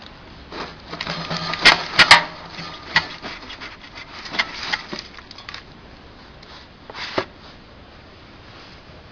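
Sharp metal clicks and clanks from handling a small electric feed grinder's housing and clamp handle by hand. The loudest is a quick cluster of three about two seconds in, with scattered single knocks after.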